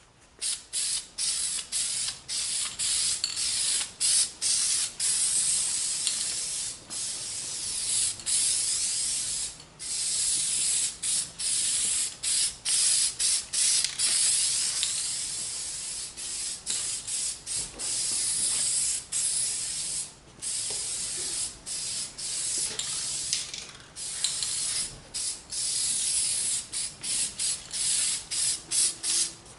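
Aerosol spray can hissing as it is sprayed in many bursts, each a second or so long, with brief breaks as the nozzle is pressed and released, the gaps coming in quick succession near the end.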